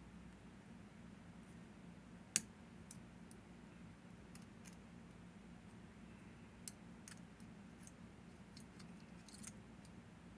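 Faint, scattered metallic clicks of lock picks working the six levers of a Hori 1601 lever padlock, with one sharper click about two seconds in, over a low steady hum.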